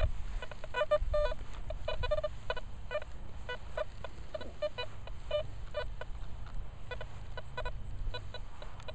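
Nokta Velox One metal detector giving rapid, irregular short chirping tones as its coil sweeps over grass: chatter, which the user takes for electromagnetic interference from nearby buildings or a school.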